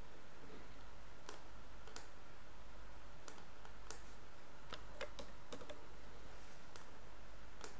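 Computer mouse clicking about a dozen times at irregular intervals, over a faint steady low hum.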